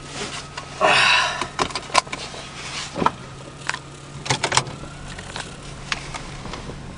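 Car seatbelt being put on: a rustle of the webbing being drawn out about a second in, then the buckle clicking into its latch with a few more light clicks and rattles, over the steady hum of the car's engine idling.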